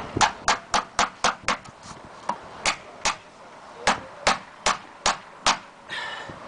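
Hammer driving nails through metal ridge flashing on an aluminum shingle roof: a quick run of sharp strikes, about four a second, then slower single blows with short pauses. A brief rasping sound near the end.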